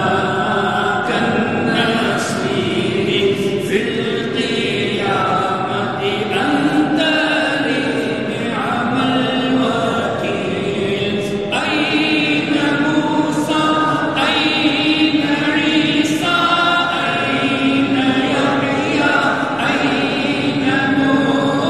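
Several voices chanting a devotional Islamic recitation together, with long held, wavering notes.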